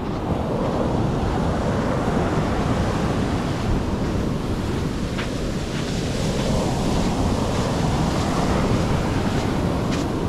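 Mediterranean surf washing onto the beach in a continuous rush that swells and eases, with wind buffeting the microphone as a low rumble.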